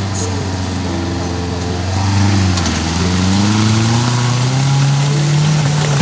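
Off-road 4x4's engine running under load, its pitch dropping about two to three seconds in and then rising steadily as it revs up.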